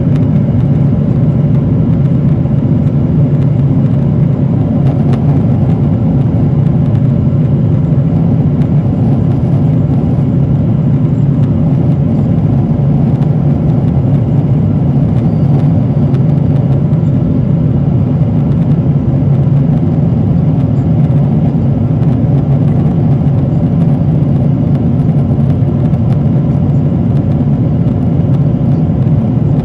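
Steady low cabin rumble of a Boeing 777-300ER in cruise, heard from a window seat over the wing: engine and airflow noise from its GE90 turbofans and slipstream, unchanging throughout.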